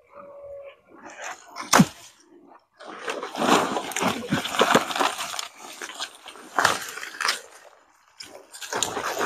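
Rustling and crackling of dry undergrowth, a nylon backpack and the papery hornet's nest as the nest is pushed into the bag. There is one sharp snap about two seconds in, then dense, irregular rustling for several seconds and another burst near the end.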